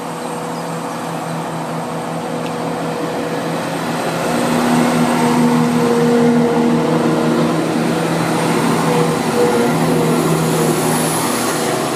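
British Rail Class 170 Turbostar diesel multiple unit running slowly alongside the platform on its underfloor diesel engines. It gives a steady droning engine hum that grows louder from about four seconds in as the carriages draw level and pass close by.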